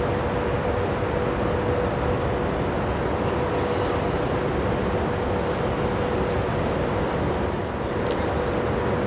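Passenger ferry's machinery running under load during harbour manoeuvring: a steady drone with a constant hum, mixed with water churned along the hull by its thrusters.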